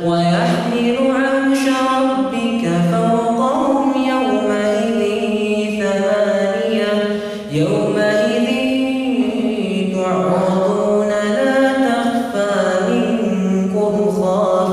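A man's voice chanting Quran recitation (tilawah) in long, melodic held phrases, with a short pause for breath about halfway through.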